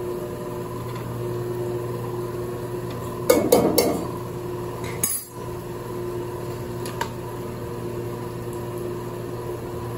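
Metal utensils and cookware clattering: a quick run of clinks about three and a half seconds in, a sharper knock near five seconds and a small click near seven, over a steady hum.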